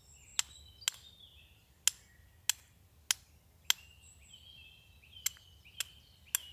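Flint and steel striking: about nine sharp metallic clicks at uneven intervals, sending sparks onto char cloth to catch an ember.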